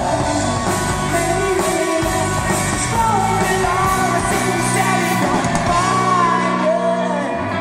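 Live rock band playing: a woman sings a melody with long, gliding notes over electric guitars and drums.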